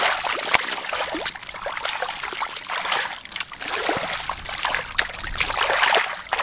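Hands digging and sweeping through thick, watery mud: continuous wet squelching and sloshing, with many small slaps and splatters.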